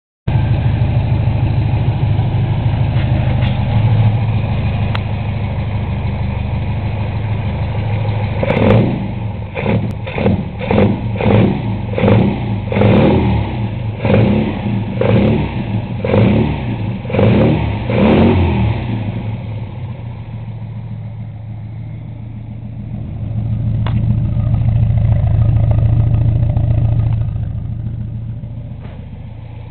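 A tuned 1860cc MGB B-series four-cylinder breathing through a Weber 45 DCOE carburettor on open ram pipes. It idles, then gets about a dozen quick throttle blips at the carburettor linkage, roughly one a second, each rising and dropping back. It then settles to idle, with one slower rise and fall in revs near the end.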